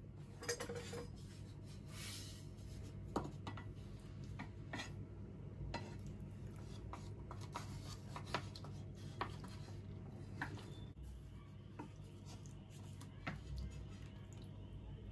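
Kitchen utensils and dishes clinking and scraping in irregular light clicks, over a steady low hum.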